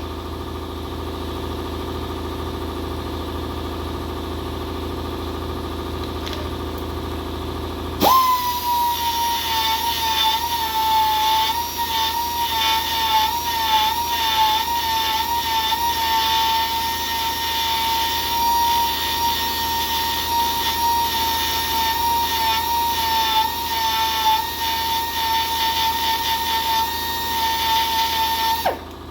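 A power grinder cleaning up tapered repair pins driven into a cracked cast-iron engine block. It starts about 8 seconds in with a steady whine that wavers slightly, runs for about 20 seconds, and stops shortly before the end. Before it starts there is a steady low hum.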